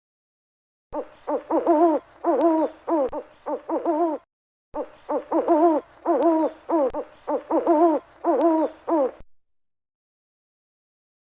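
An owl hooting in two runs of short, pitched hoots that bend down in pitch, with a brief gap between the runs.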